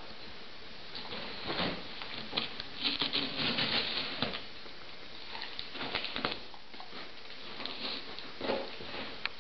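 Old English Sheepdog pawing and scratching at a cardboard box, claws scraping and tapping the cardboard in several short bouts, the longest about three to four seconds in.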